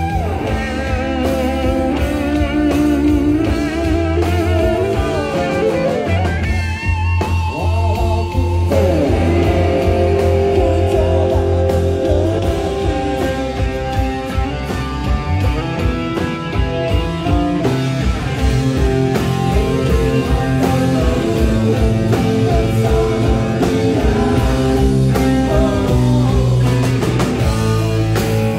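Electric guitar played through the stage amplification at a sound check. Lead lines with bent, wavering notes ring over a steady low note underneath.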